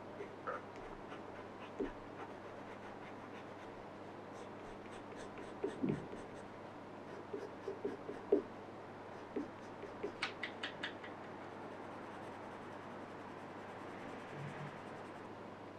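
Watercolour pencil scratching and tapping on paper, with scattered light clicks and soft knocks as pencils and a brush are picked up and set down on the table, over a low steady hum.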